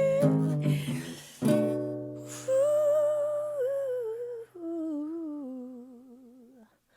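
Wordless humming of a melody over acoustic guitar chords. A fresh chord is strummed about a second and a half in, the hummed line steps down lower with a wavering vibrato, and voice and guitar fade out near the end.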